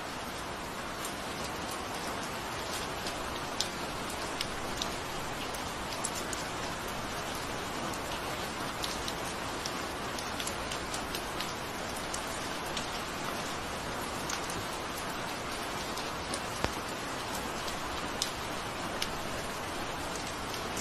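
Steady rain falling, an even hiss with scattered louder drop ticks hitting a surface.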